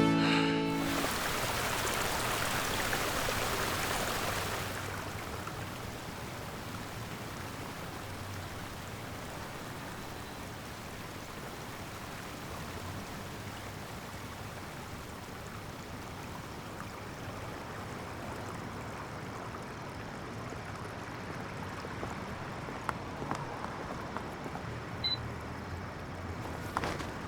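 Steady hiss of running water, louder for the first few seconds and then settling lower, with a few faint clicks near the end.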